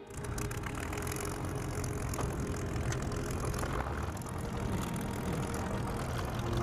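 Supermarine Spitfire's Rolls-Royce Merlin V12 engine running, heard from aboard the aircraft, with a steady low drone and rough noise on top. It cuts in abruptly.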